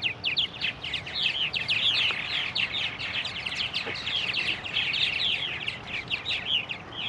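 Purple martin nestlings begging: a continuous run of rapid, high, thin chirps, each sliding downward, several a second.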